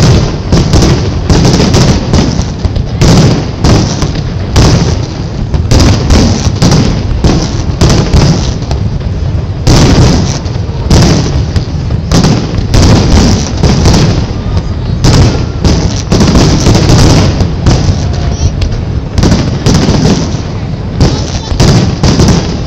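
Aerial fireworks shells bursting in a loud, dense barrage, bang after bang in quick succession.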